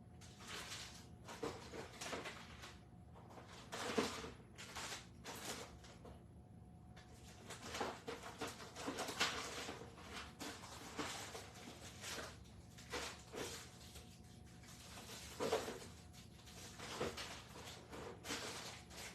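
Rummaging: a string of irregular knocks, clacks and rustles as things are shifted and drawers or containers opened and shut while someone searches through craft supplies.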